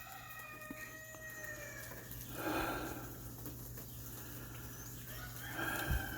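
Faint rooster crowing twice, about two seconds in and again near the end, with thin bird chirps and a steady low hum underneath.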